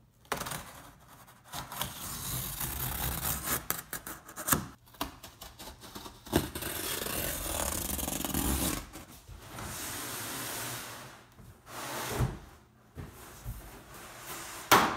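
A box cutter slicing through the corrugated cardboard of a stove's shipping box in long scraping strokes, broken by short pauses. A few sharp knocks come in between, the loudest near the end.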